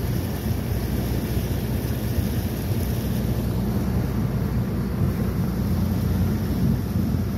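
Boat's engine running steadily while under way, with wind on the microphone.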